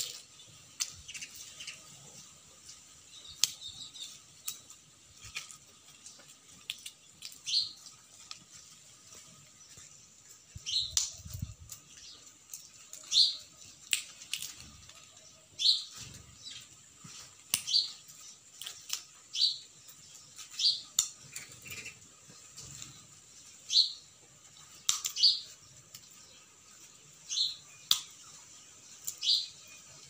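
House sparrows chirping, a short high chirp every second or two, among scattered light clicks from the peanut shells they pick through.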